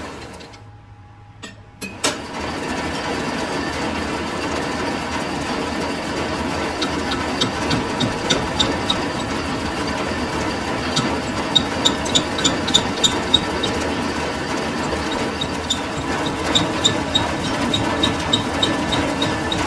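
Metalworking lathe running with a steady mechanical hum as it machines a sugarcane juicer roller bush. The sound drops away briefly near the start. From about a third of the way in, sharp ticks repeat a few times a second over the running noise.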